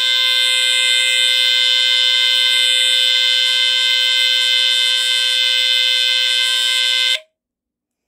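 Square-D Earli-Gard EGD-1C smoke detector's Edwards squealer horn sounding its alarm in response to canned test smoke: a steady, loud, high modulated DC squealer tone. It cuts off suddenly about seven seconds in.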